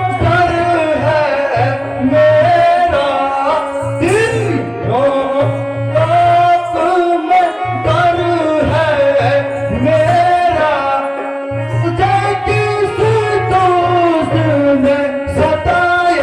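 Live song accompaniment: a sung melody over a pitched instrument and hand-drum rhythm, running without a break.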